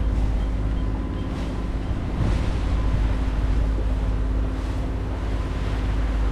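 Jeanneau 57's Volkswagen 140 hp marine diesel running steadily with the yacht under way, a constant hum, with wind on the microphone and water rushing past the hull.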